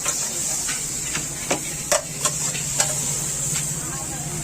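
Tarka sizzling in a hot pan while a metal ladle stirs it, knocking and scraping against the pan in sharp, irregular clicks. A steady low hum runs underneath.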